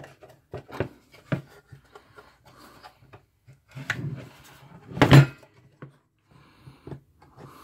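Plastic cover of a soldering station being worked loose by hand from its clipped-in base: scattered clicks and knocks with soft rubbing of plastic on plastic. A louder knock comes about five seconds in.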